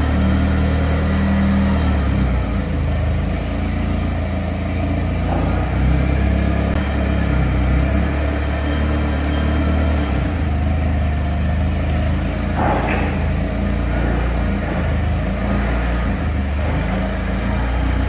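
Daewoo G25E-3 forklift engine running steadily at a low idle while the forklift holds and positions a tractor tire. A single knock is heard about two-thirds of the way through.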